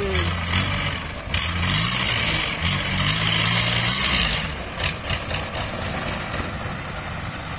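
Long-tail boat engine running, its propeller on a long angled shaft churning the water into spray. The engine note shifts up and down over the first few seconds, then runs steadier and a little quieter.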